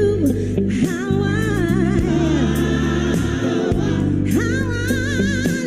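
Gospel singing: voices holding long notes with vibrato over low sustained accompaniment notes that change in steps.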